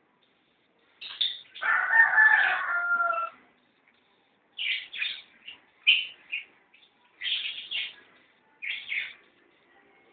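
A rooster crows once, about a second and a half in, a long call that drops in pitch at its end. Several groups of short, high bird chirps follow.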